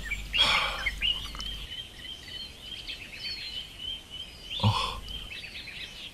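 Small birds chirping and trilling repeatedly in a woodland ambience. There is a short soft noise about half a second in and a brief, louder muffled sound a little before five seconds.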